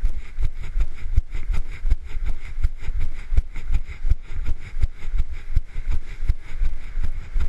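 A jogger's running steps: rhythmic thuds about three a second, the footfalls and the jolting of the handheld camera with each stride, over a steady rush of noise.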